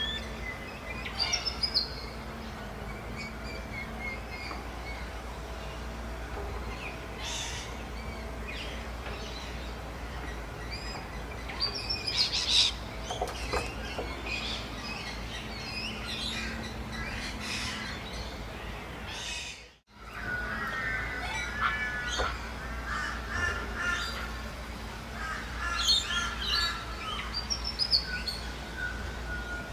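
Birds calling outdoors: scattered harsh calls and high chirps over a steady low background rumble. The sound cuts out for a moment about twenty seconds in.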